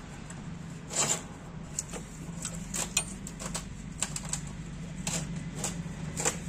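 Irregular light metallic clicks and knocks from a Hyundai Eon's pistons being rocked by hand in their bores, each piston knocking against the cylinder wall: a check for piston play, the slack of a piston in a worn bore. A steady low hum runs underneath.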